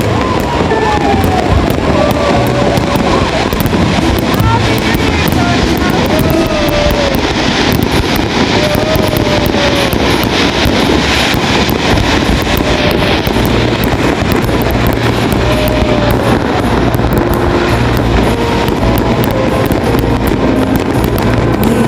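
Many fireworks going off together in a dense, continuous crackle of bangs.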